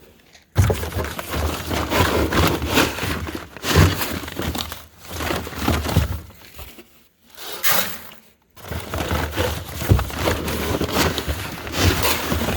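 Dry shredded beet pulp being scooped out of a feed container into a bucket: continuous crinkly rustling and scraping in two long stretches, with a short pause about seven seconds in.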